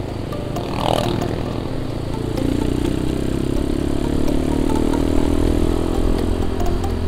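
Motorcycle engine running under way, with wind and wet-road noise; from about two and a half seconds in the engine note swells and holds steady as the bike pulls.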